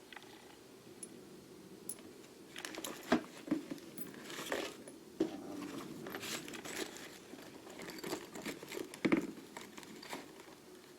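Crinkling and rustling of wrapping, mixed with small clicks and knocks, as small lathe parts are handled and unwrapped from a toolbox. The noise comes in bursts, starting a couple of seconds in and dying away near the end.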